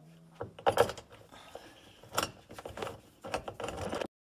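Irregular metallic clicks and clinks of a seatbelt anchor bolt, washers and a hand-turned Torx socket being fitted and tightened. The sound cuts off abruptly near the end.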